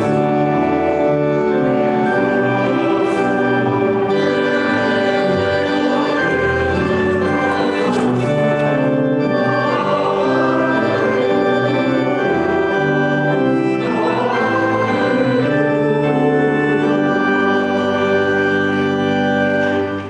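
Church organ playing sustained chords with a choir singing a hymn; the music stops just at the end.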